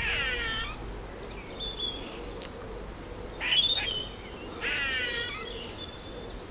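Eastern grey squirrel giving squeaky calls, three of them, each falling in pitch: one at the start, one about three and a half seconds in, one about five seconds in. The filmer takes them for alarm calls at some threat other than himself.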